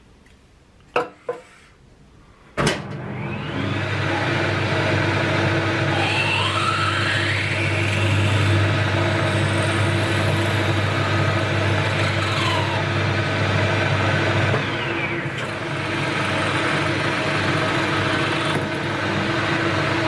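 A few light knocks, then a clunk about two and a half seconds in as a worn Boxford lathe starts. The lathe then runs steadily while a twist drill in the tailstock bores an 8 mm hole through the centre of the spinning chuck arbor, with a whine that rises and falls in pitch a few times.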